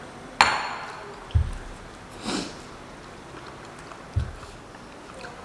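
A sharp clink that rings briefly, two dull low thumps and a short breathy rush, like handling sounds at a table.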